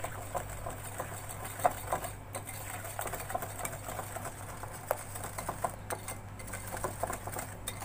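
Wire whisk beating a thick mayonnaise-and-cream dressing in a glass bowl, its wires ticking and tapping against the glass several times a second, over a steady low hum.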